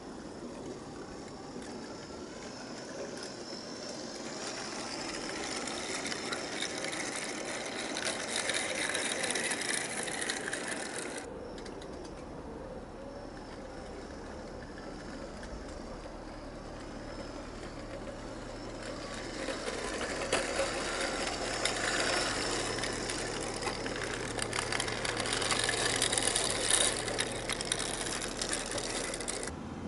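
Small model locomotive's geared electric motor whirring, driving the axles through helical gears, with the wheels and wagons rattling and clicking along the track. It grows louder as the train nears, breaks off sharply about eleven seconds in, then builds again and is loudest as the train passes close near the end.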